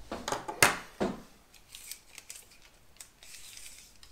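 Tape measure being pulled out and its blade laid along a rifle: a quick run of scraping rasps and sharp clicks in the first second or so, the loudest click a little over half a second in. Fainter light ticks follow.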